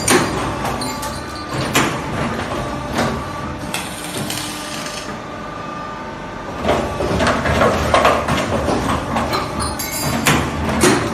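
Automatic wire hook making machine running, with sharp metallic clanks every one to three seconds over a steady machine hum.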